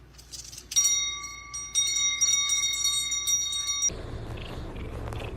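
A bell ringing with a sustained, metallic tone, struck again about a second after it starts; it cuts off suddenly about four seconds in, giving way to a low rumbling noise.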